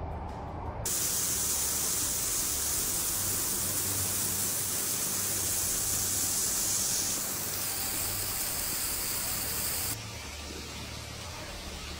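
Heavy rain pouring down: a loud, steady hiss that starts suddenly about a second in, shifts in tone partway through, and drops away sharply near the end.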